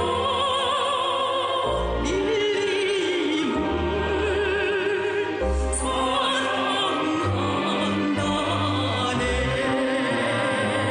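Music: a voice singing long held notes with wide vibrato over instrumental backing with a steady bass line.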